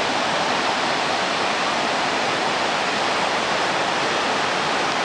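Waterfall crashing down close by: a steady, loud rush of falling water.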